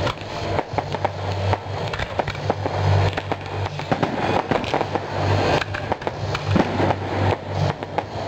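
A fireworks display going off: a dense run of bangs and crackling, several every second, over the rushing of rockets and fountains. A low hum comes and goes underneath.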